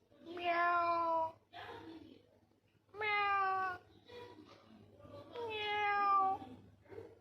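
Cat meowing: three long, drawn-out meows, each about a second, with softer short calls between them.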